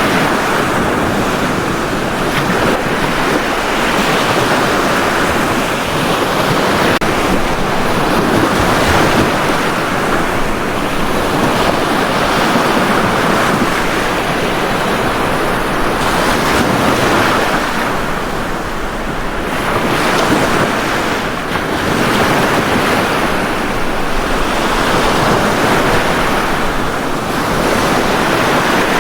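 Sea waves breaking and washing up a beach: a continuous surf wash that swells and eases every few seconds.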